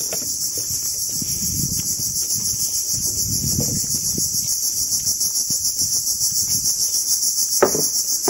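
Loud, dense chorus of forest insects: a high, shrill, continuous drone that pulses evenly several times a second. Under it are a few low dull thuds, and there is a sharper knock near the end.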